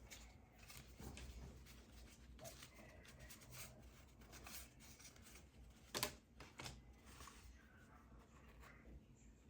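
Quiet room with faint rustling and small handling noises, and two sharp clicks about six seconds in, about half a second apart.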